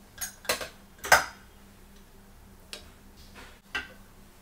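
Several sharp metal clinks and knocks as a small steel cup is lifted out of an aluminium pressure cooker and set down on a stone counter. The loudest knock comes about a second in.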